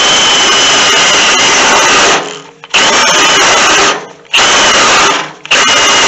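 Cordless drill with a twist bit drilling through a spot weld in a car's sheet-steel radiator support: the motor whines over the grind of the bit in the steel. It runs in stretches of one to two seconds and stops three times, its battery low.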